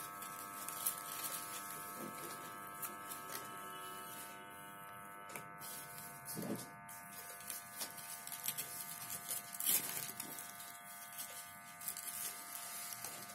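A steady buzzing hum made of several held high tones, with soft paper rustles and handling sounds as the folded panels of a handmade paper greeting card are opened and adjusted.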